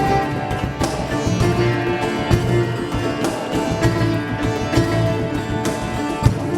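Live Indian–Latin fusion ensemble playing, with a sitar melody over tabla and bass and frequent sharp percussive strikes.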